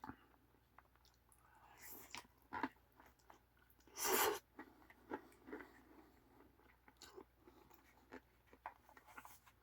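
A person chewing a mouthful of ramen topped with crunchy fried beans, peas and seeds: faint, scattered crunches and mouth clicks, with one louder, noisy half-second sound about four seconds in.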